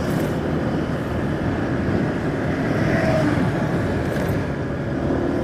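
Steady rumble of a moving road vehicle heard from on board: engine, tyres and wind running evenly at cruising speed on a paved highway.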